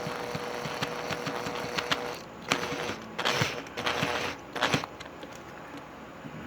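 Small power screwdriver motor running, driving a screw for about two seconds, then in several short bursts as the screw is snugged down.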